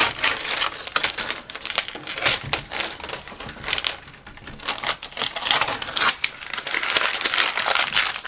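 Adhesive stencil vinyl being peeled off a painted wooden board: a dense, rapid crackle of little clicks, easing off briefly about halfway, then crinkling again as the peeled vinyl is handled.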